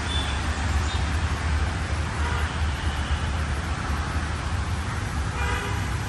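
Distant city road traffic: a steady low rumble and hiss. A vehicle horn sounds briefly near the end.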